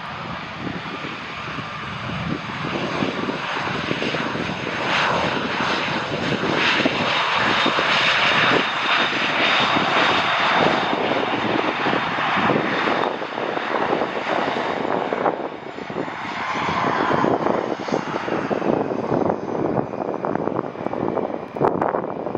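Airliner's engines on landing approach, growing louder to a peak about ten seconds in and then easing off as the aircraft passes. A thin whine sits over the rushing noise, and a tone slides down in pitch near the end.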